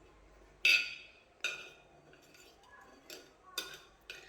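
A metal utensil clinking against a plate while a slice of cake is cut and served: about five sharp clinks, the first, about half a second in, the loudest.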